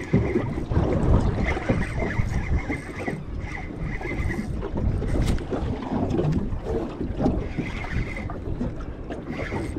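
Wind buffeting the microphone and water slapping against a small fishing boat, with a spinning reel being wound in short stretches as fish are brought up.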